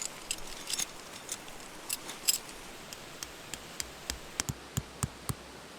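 Irregular sharp clicks and light knocks of camping gear being handled, turning into a quick run of sharper knocks, about four a second, in the second half.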